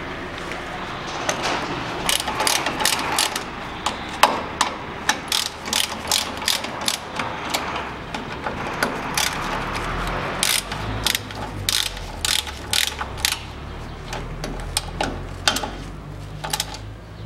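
Hand ratchet wrench clicking in quick runs with short pauses, tightening the nut on the upper ball joint of the front suspension.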